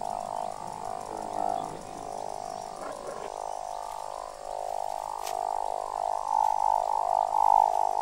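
A dense chorus of frogs calling, many overlapping voices, growing a little louder in the second half.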